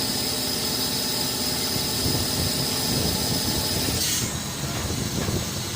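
Foden 6x6 recovery truck running with a steady engine hum and a high whine; about four seconds in there is a short hiss and the high whine stops.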